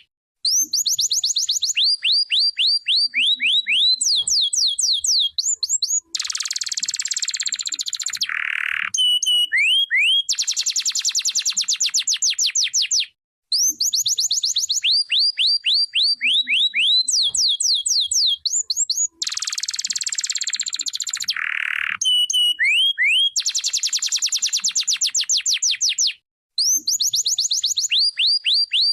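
Domestic canary singing: phrases of rapidly repeated sweeping notes, about ten a second, broken by a dense rolling trill and a short low buzzy note. There are brief pauses, and the same song sequence comes round again about every thirteen seconds.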